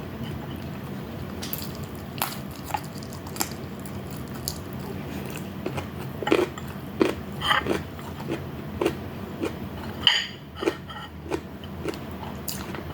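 Close-miked eating: chewing and biting food, with wet mouth clicks and smacks that come more often in the second half, over a steady low hum.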